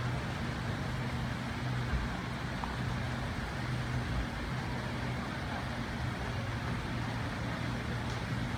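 Steady traffic noise in a city street, with a low, even hum running under it.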